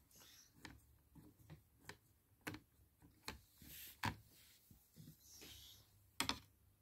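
Faint handling sounds as a screwdriver drives small screws into a toy laptop's plastic case: scattered light clicks with a few sharper ones, and soft scraping.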